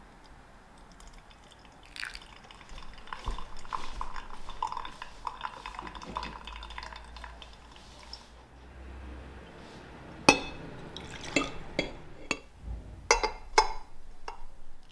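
Hot water poured from a gooseneck kettle onto an empty paper filter in a pour-over dripper, wetting the filter, for several seconds. This is followed by a few sharp clinks as the dripper is handled against the glass server.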